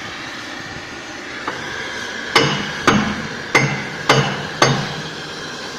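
Hammer striking steel: five hard blows about two a second, each with a short metallic ring, after a lighter knock.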